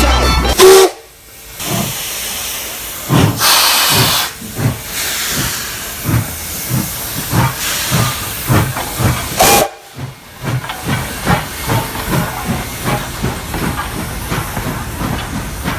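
Train running along the track: a steady rushing hiss with regular low knocks, about two a second, of the wheels passing over rail joints.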